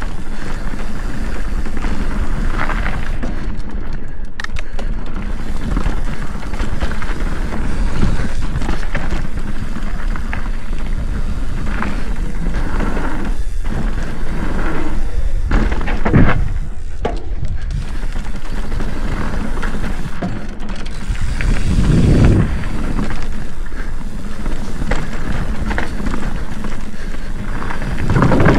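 Mountain bike riding a dirt singletrack, heard from a camera on the bike or rider: constant wind on the microphone, tyre rumble and chain and frame rattle, with heavier thumps over bumps, the loudest about 16 seconds in and again about 22 seconds in.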